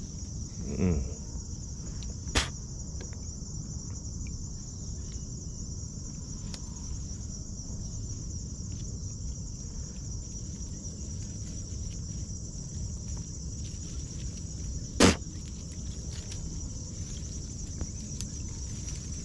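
A steady, high-pitched chorus of insects runs on without a break. A sharp click comes about two seconds in and a louder sharp knock about fifteen seconds in.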